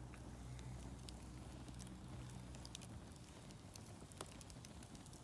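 Wood fire in a metal fire pit crackling faintly, with scattered sharp pops, over a low steady hum.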